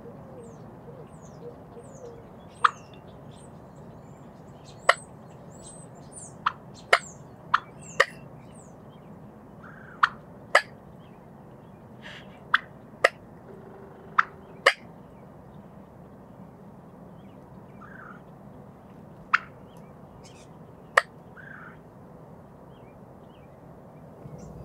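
Wild turkey clucking: about fourteen short, sharp single notes at irregular intervals, a second or more apart. Faint small-bird chirps and a soft steady outdoor background lie underneath.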